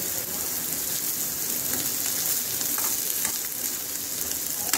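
Chopped onions and curry leaves sizzling steadily in hot oil in a stainless steel kadai, with a few scrapes of a perforated steel spatula against the pan as they are stirred.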